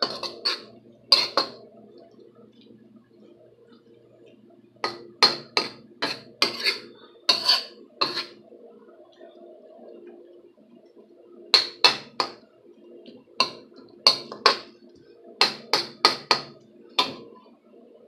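Spatula scraping and knocking against a nonstick frying pan while stir-frying fried rice, in bunches of short, sharp scrapes, over a steady low hum.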